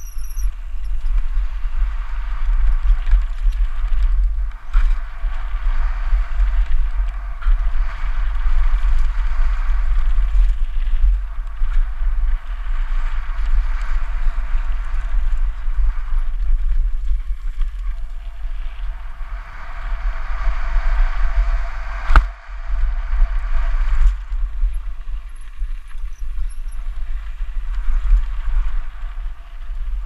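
Mountain bike descending a loose gravel trail: tyres rolling and the bike rattling, with heavy wind buffeting the helmet-mounted camera's microphone. A sharp knock comes about two-thirds of the way through.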